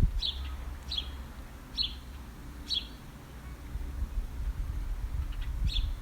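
A small bird chirping: short, high chirps about once a second for the first few seconds, then again near the end, over a faint low rumble.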